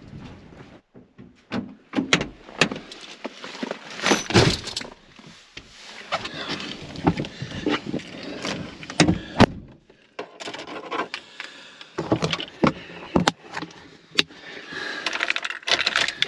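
Handling noises of getting into a pickup truck's cab: a run of knocks, thunks and clicks, with keys jangling at the ignition near the end.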